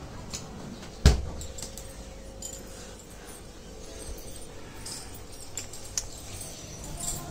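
A refrigerator door shutting with a single sharp thump about a second in, followed by scattered faint clicks and knocks of bottles being handled.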